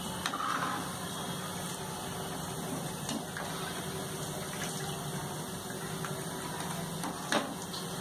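Hot oil bubbling and sizzling gently in a kadai after deep-frying pieces of sweet maida dough, over a steady low hum. A single sharp click stands out near the end.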